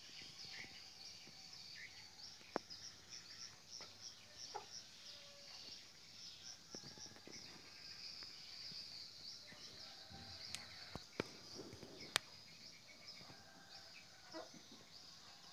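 Faint night chorus of insects, crickets or katydids, chirping high and fast without a break. A few sharp clicks cut through it, the loudest about twelve seconds in.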